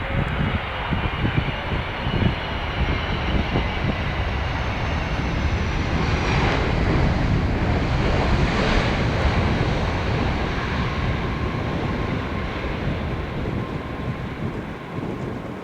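Jet airliner's engines passing by: a roar that builds to its loudest about halfway through and then fades, with a high whine falling in pitch as it approaches.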